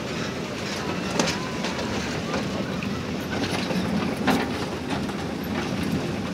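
A small park ride train running along its track with a steady rumble, its wheels clacking sharply now and then.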